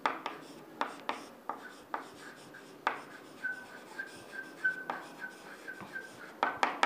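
Chalk writing on a chalkboard: irregular quick taps and scratchy strokes as letters are written, with a faint thin high squeak through the middle.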